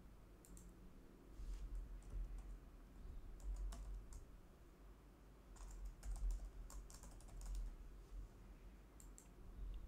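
Faint typing on a computer keyboard, the keystrokes coming in short irregular runs.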